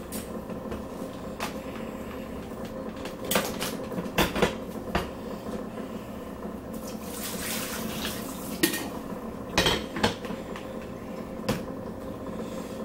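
Kitchen handling sounds: dishes, pans and utensils knocking and clinking in scattered, irregular clicks and knocks, with a short hiss a little past the middle, over a steady low hum.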